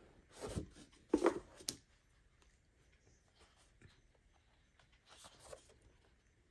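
Sheets of craft paper rustling as they are handled and turned over, in three short spells with a sharp click between the first two.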